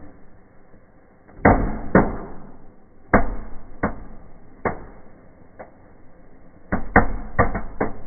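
Indoor fireplace fireworks going off: a string of about a dozen sharp bangs over a faint hiss of spark fountains, two about a second and a half in, several spaced a second or so apart through the middle, then a quick cluster of four or five near the end.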